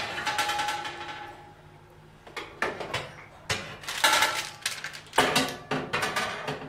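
Metal oven tray and wire oven rack clinking and rattling as they are handled: a ringing clank at the start, a short lull, then a run of sharp clanks and knocks from about two and a half seconds in.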